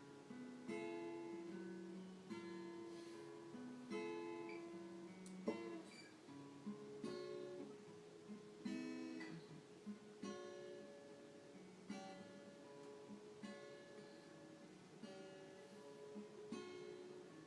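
Acoustic guitar played alone, a chord struck about every second and a half and left to ring, with one sharp click of the strings partway through.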